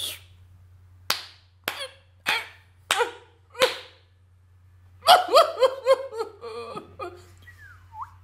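A spanking sound effect: five sharp slaps about half a second apart. These are followed by a string of short pitched yelps that rise and fall, the spanked hot dog whimpering, and a single upward-sliding note near the end.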